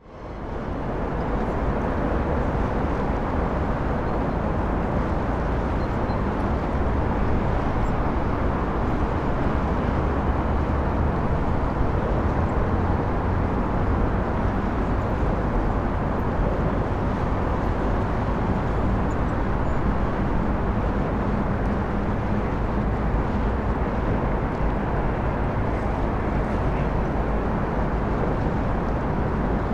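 Steady low drone of a Project Q-040A river cruise motor ship's engines passing close by, with a faint hum over a constant outdoor rumble.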